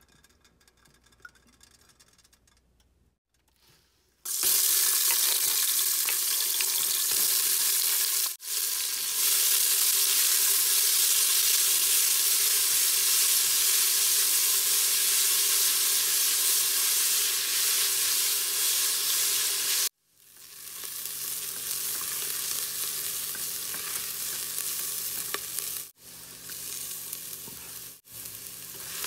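Diced red onion sizzling as it fries in hot avocado oil in a metal pot, stirred with a spatula. The sizzle starts about four seconds in, is loudest for the first half, then carries on quieter, with several abrupt cuts.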